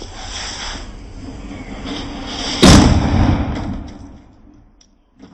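A steady hiss, then a single loud bang about two and a half seconds in, dying away over a second or so: a Diwali firecracker exploding inside a plastic container and tearing it open.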